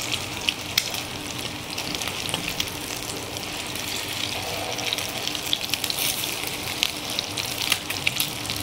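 Egg-coated chicken-and-potato cutlets shallow-frying in a little oil in a nonstick pan: a steady sizzling hiss broken by frequent sharp crackles and pops.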